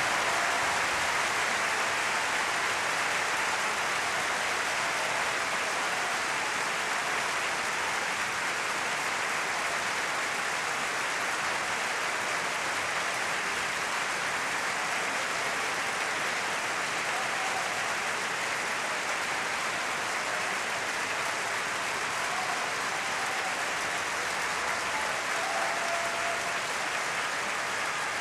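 Large opera-house audience applauding steadily after a duet, a dense, even clapping that carries on throughout.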